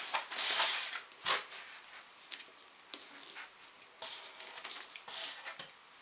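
Hardback book being handled and turned over in the hands: soft rubbing and rustling, with a sharp tap about a second in and a few fainter ticks after.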